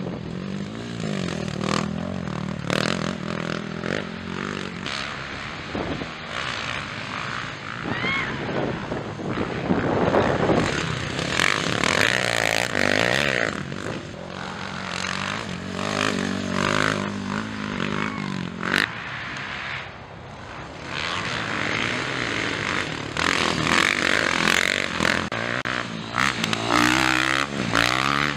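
Motocross bike engines revving hard as the bikes race on a dirt track. The pitch keeps rising and falling as riders open and close the throttle through corners, and at times more than one bike can be heard.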